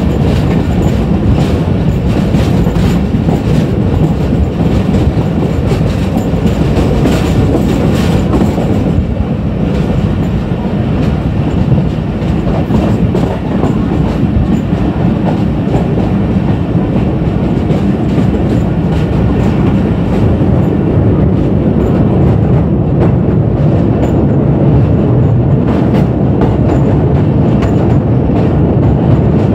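Passenger train running at speed, heard from a coach window: a loud steady rumble of wheels on the rails, with quick clicking clatter through the first third that then smooths out.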